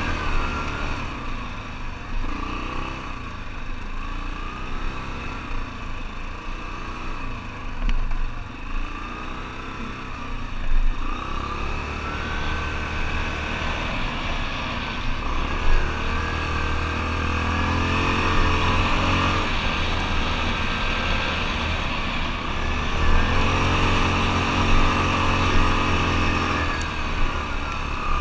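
ATV engine running under way on a trail, its pitch rising and falling again and again as the throttle opens and eases, with a few short knocks along the way.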